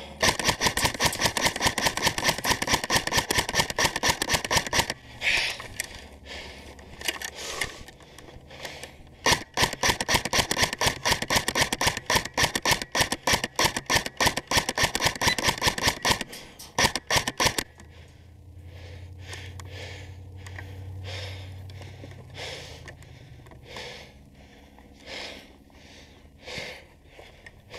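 Airsoft electric rifle (AEG) firing on full auto: long strings of rapid BB shots, one for about five seconds and a longer one from about nine seconds to about seventeen seconds, then only scattered clicks.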